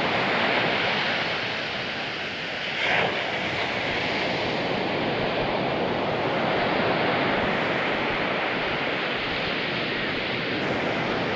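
Ocean surf breaking and washing up a sand beach, a steady rushing noise that swells and eases, with some wind on the microphone.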